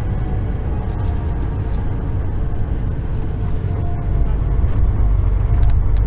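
Heavy truck's engine running with a steady low rumble on a steep descent; the rumble grows louder about four seconds in.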